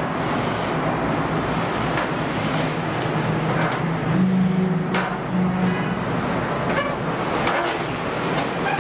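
Steady traffic-like rumble and hiss, with a thin high-pitched squeal that starts about a second in and fades, then comes again near the end.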